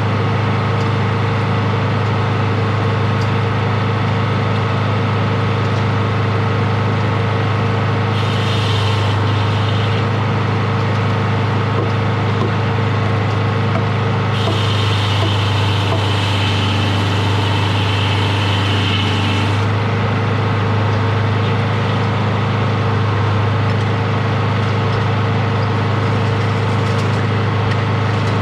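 Sawmill's engine running steadily at a constant speed. A higher hissing whine joins twice: briefly about eight seconds in, and for about five seconds near the middle.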